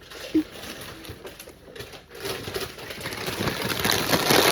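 Plastic snack packaging and a Ziploc bag crinkling and rustling as they are handled, louder from about two seconds in.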